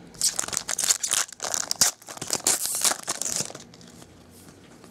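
Foil wrapper of a baseball card pack being torn open and crinkled, a dense crackling that stops about three and a half seconds in.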